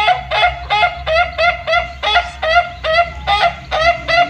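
Fowl calling: short, nasal, honk-like calls repeated very evenly, about three a second.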